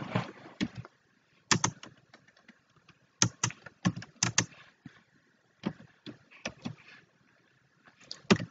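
Typing on a computer keyboard: separate keystroke clicks in short irregular runs with pauses between.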